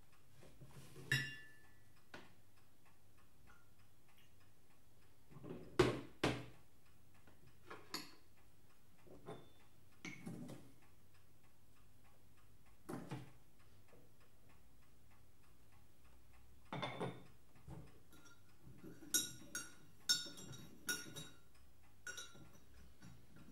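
Scattered light clicks and clinks of china as sugar cubes are taken from a porcelain sugar bowl and dropped into a mug, with a quick run of ringing clinks near the end.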